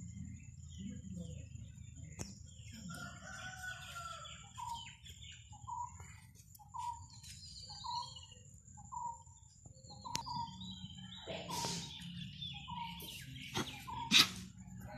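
A rooster crowing once a few seconds in, then a bird repeating one short call over and over, a little faster than once a second, over a thin steady high tone. Near the end come bursts of rustling and a single sharp click, the loudest sound.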